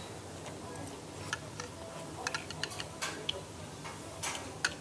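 Close-up chewing of stir-fried gopchang with cartilage, a run of small wet mouth clicks and smacks at an uneven pace of a few a second.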